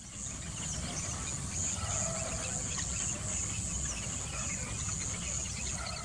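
Insects buzzing, with a steady high whine that pulses. A few short high chirps sound over it, and there is a low rumble underneath.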